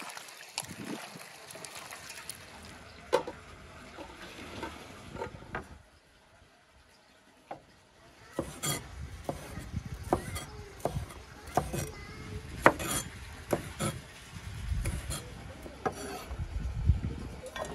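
Hands squishing and turning raw, seasoned lamb testicle pieces in an enamel bowl. After a short quiet gap, a large knife chops green peppers on a wooden board, with irregular sharp knocks roughly once a second.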